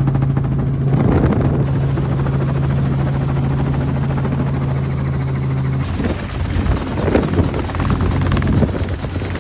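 Helicopter in flight: a steady low drone of rotor and engine with rushing air. About six seconds in the sound changes abruptly to a rougher, pulsing stretch, still with the same low hum.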